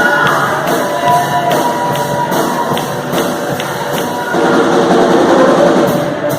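Live gospel praise band playing, with a drum kit keeping a steady beat; mostly instrumental, with little singing.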